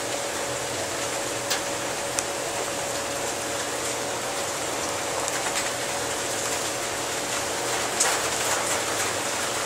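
A steady hiss with a faint steady hum beneath it, broken by a few light clicks.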